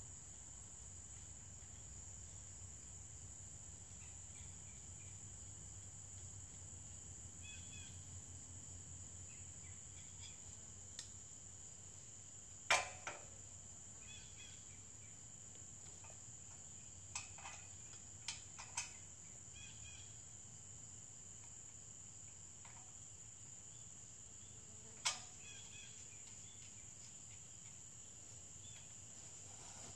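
Steady high-pitched chorus of crickets and other insects, with a handful of sharp knocks from the metal ladder stand being handled: one about 13 seconds in, a quick cluster around 17 to 19 seconds, and another near 25 seconds.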